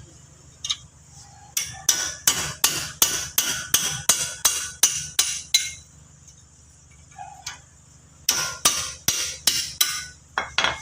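Hammer striking metal in two quick runs of blows, about four a second, with a pause of a couple of seconds between them, while rusted disc brake parts are knocked loose for removal.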